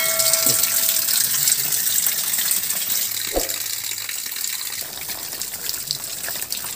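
Water falling from a rock overhang and splashing steadily, getting a little quieter in the second half.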